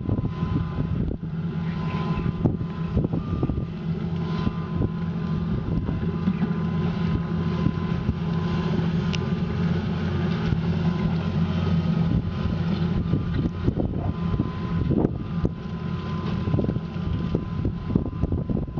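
Diesel engine of a 25-tonne amphibious long-reach excavator running steadily under load, with a steady whine above the engine hum.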